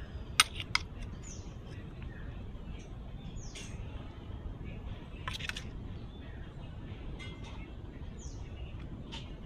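Two sharp clinks of a steel spoon against a steel serving bowl about half a second in, then small birds chirping briefly now and then over steady outdoor background noise.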